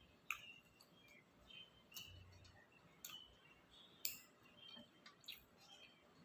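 Quiet close-up eating sounds of someone chewing takoyaki: soft wet mouth clicks and smacks, with about five sharper clicks spread across the few seconds.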